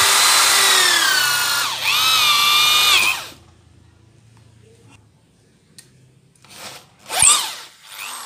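Corded NRT Pro 500HD electric drill running at full speed, its bit boring into a thick block of hardwood. The loud whine sags once under load, picks up again, and stops about three seconds in. Near the end the motor gives two short spin-ups with a sharp knock, and the last one winds down.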